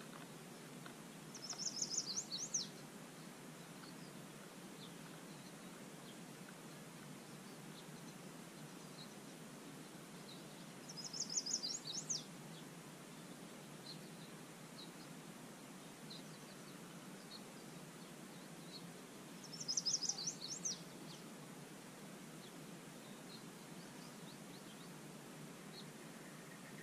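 A songbird singing three times, each a quick run of high notes lasting a second or so, roughly nine seconds apart, over a faint steady background hiss.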